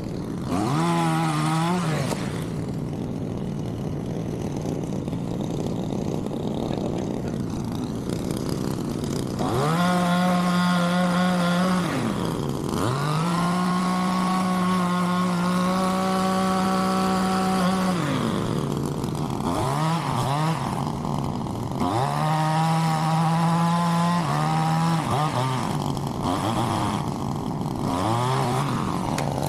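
A chainsaw running at full throttle in several long runs while cutting pecan wood, its pitch sliding back down to idle between runs.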